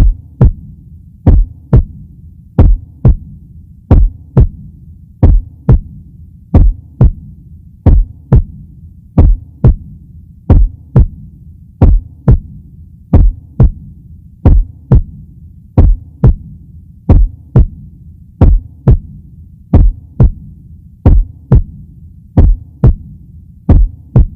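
Heartbeat sound effect: paired lub-dub thumps repeating steadily about every second and a third, over a continuous low hum.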